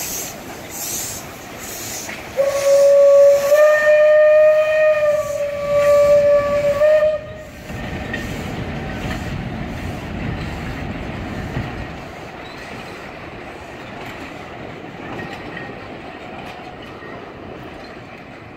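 Narrow-gauge steam locomotive puffing steadily as it pulls its train away, then a long blast on its steam whistle about two seconds in, lasting some five seconds and rising a little in pitch soon after it starts. After the whistle stops, the wooden carriages rumble past on the track and slowly fade.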